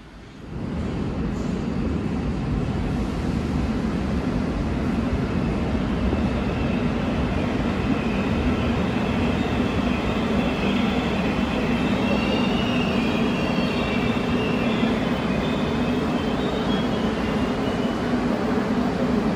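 Korail Line 4 new-type electric subway train running into the station and braking to a stop behind the platform screen doors. It comes in suddenly about half a second in as a steady loud rumble, with a high whine over the second half as it slows.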